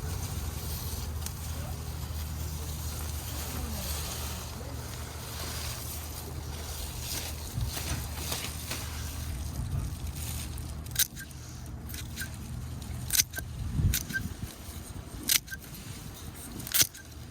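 A steady low engine hum fades out after about ten seconds. A series of sharp snaps and clicks follows as amaranth stems are picked during harvesting.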